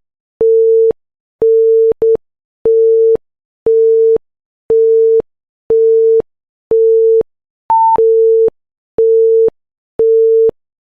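Electronic countdown-timer beeps: a steady mid-pitched beep about once a second, each lasting about half a second, with one brief higher beep around eight seconds in.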